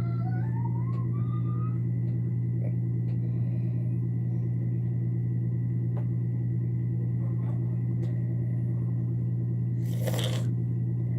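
Steady low hum with an even level throughout. There are a few faint clicks, and a short rustling noise comes about ten seconds in.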